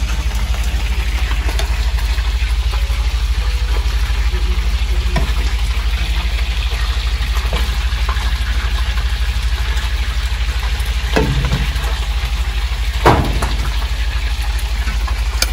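Food frying in hot oil: a steady sizzle over a constant low hum, with a single sharp knock about thirteen seconds in.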